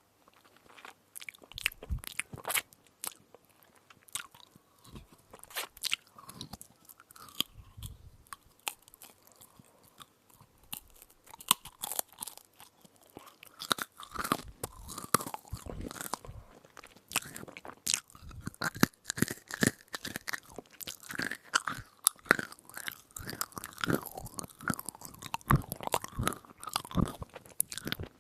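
Close-miked chewing and crunching of an edible spoon: many sharp, crackly crunches between the teeth, sparse at first and busier and louder from about halfway through.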